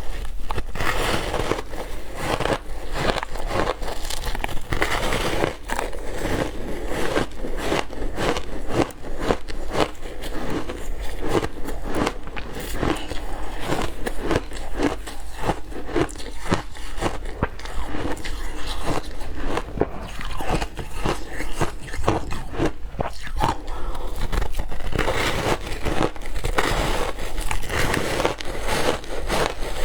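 Ice being bitten and crunched between the teeth close to the microphone, in a rapid, continuous run of sharp cracks and crunches.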